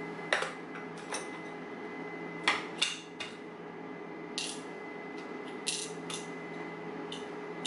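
Small metal tools and parts clinking and clattering as they are picked up, moved and set down on a bench: about nine short, sharp clinks spread through, the loudest near the start and at about two and a half and three seconds in.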